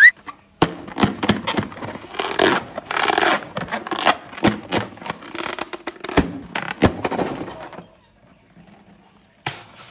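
Hands working balloons and slime: a rising squeak cuts off at the start, then about eight seconds of squishing, scraping and crackling with sharp clicks, which stops, and one more click comes near the end.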